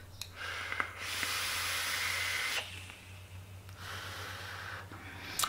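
Vaping on a sub-ohm dripper at 70 watts: a strong airy hiss of the draw through the atomizer for about a second and a half, then after a pause a softer breathy exhale of vapour about a second long.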